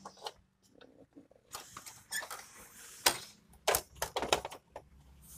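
Irregular small clicks and knocks of plastic and metal parts as a component is pushed and fitted back into place inside a Canon imageRUNNER 5075 photocopier, the sharpest knocks about three to four seconds in.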